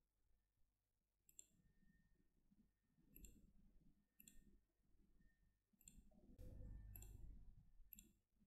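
Faint computer mouse button clicks, roughly one a second, made while placing line points in a drawing program. A low, muffled rumble runs under the clicks near the end.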